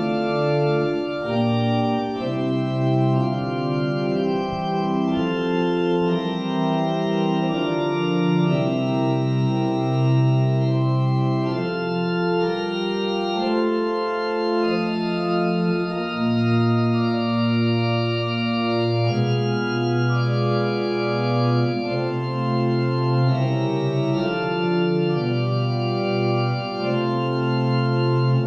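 Church organ playing a postlude after the service: full sustained chords changing every second or two over long-held bass notes.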